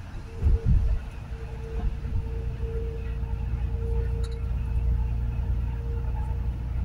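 Steady low road rumble inside a moving vehicle's cabin at highway speed, with a faint steady hum over it. A heavy low thump sounds about half a second in.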